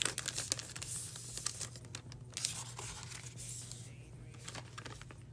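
Packaging of a set of index sticky notes being torn open, with rapid crinkling and tearing, busiest in the first second or so and thinning out toward the end.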